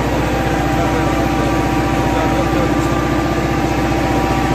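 Massey Ferguson 385 tractor's four-cylinder diesel engine running steadily under way, heard from the driver's seat as a loud, even chugging drone.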